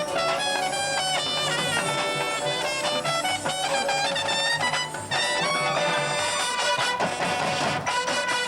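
Brass ensemble music: many horns playing together, with a brief drop in loudness about halfway through.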